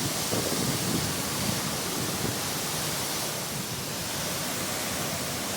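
Waterfall's water rushing steadily, an even hiss with some uneven low rumble beneath it.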